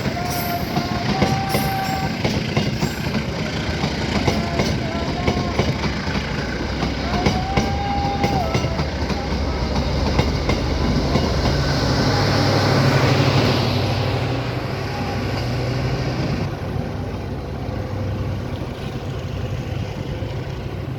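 Train passing over a railway level crossing, its wheels clattering steadily on the rails, with a few short wavering high tones in the first several seconds. A low engine drone builds to its loudest about 13 seconds in, then eases.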